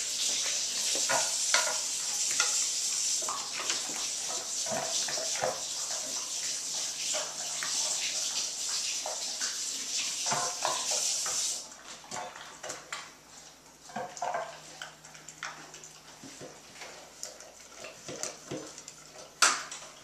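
A dog eating from a stainless-steel bowl: irregular clinks and knocks of the food and bowl as it eats. Under them a steady hiss runs for the first half and cuts off suddenly about twelve seconds in.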